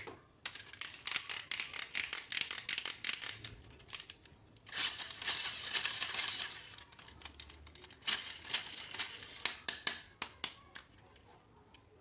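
Toy packaging being handled and opened: bursts of rapid crackling clicks, with a longer rasping rustle in the middle.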